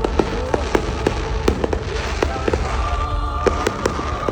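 Fireworks going off: an uneven string of sharp cracks and pops over a steady low rumble, with a held tone joining about two-thirds of the way through.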